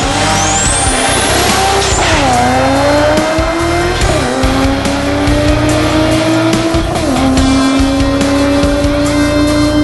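Turbocharged Toyota Supra accelerating hard through the gears: the engine note climbs steadily and drops sharply at upshifts about two, four and seven seconds in.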